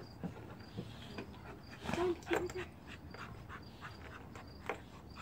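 A Saint Bernard puppy and a Labrador wrestling in play, with a few short growls and grunts about two seconds in. Scuffling knocks and clicks of paws and claws on wooden deck boards.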